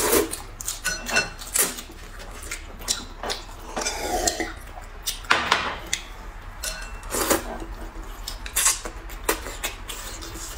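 Noodles being slurped and eaten, with chopsticks clicking against glass and ceramic bowls: a string of short slurps and clinks about once a second.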